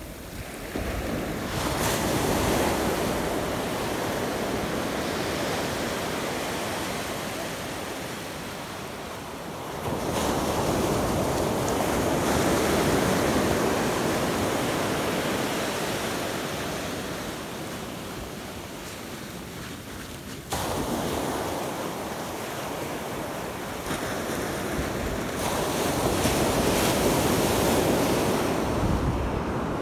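Ocean surf breaking on a sandy beach, a steady rush of water that swells and ebbs in three long surges, with wind buffeting the microphone.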